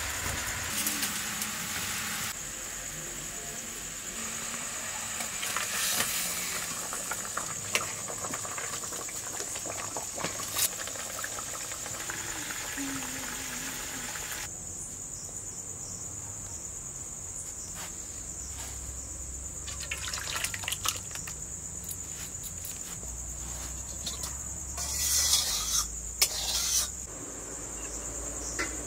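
Oil and fish sizzling in an iron kadai over a wood fire for roughly the first half, stopping suddenly about halfway through. Crickets chirp steadily as a high trill throughout. Near the end come a few short scrapes and clinks of a spoon serving the curry.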